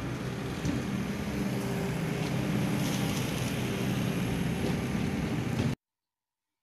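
Steady outdoor background noise with a low rumble, picked up while walking with the camera, which cuts off abruptly near the end.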